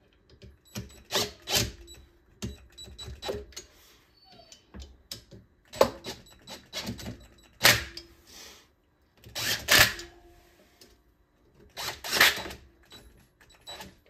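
Sharp metal clicks and clinks of hand tools in short clusters every one to two seconds as an electric motor's end-cap bolts are tightened with a bit driver, a little at a time.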